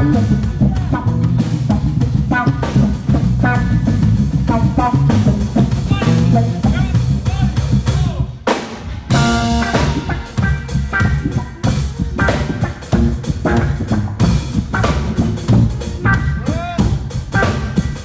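A band playing a groove: drum kit with kick, snare and rimshots under electric guitar, with a short break about halfway through before the groove picks up again.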